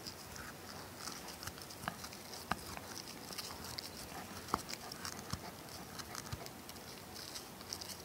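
Shiba Inu–Schipperke mix puppy chewing a tennis ball: irregular soft clicks of teeth on the ball, a couple of them sharper.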